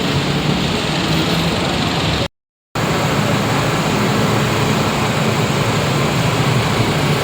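Steady running noise of a moving vehicle heard from inside: an even rumble and hiss with a low hum. The sound cuts out completely for about half a second a little after two seconds in, then resumes unchanged.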